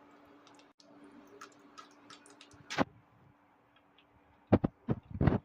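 Light clicks and knocks of kitchen utensils being handled: scattered faint ticks, one sharper knock about three seconds in, then a quick cluster of louder knocks near the end.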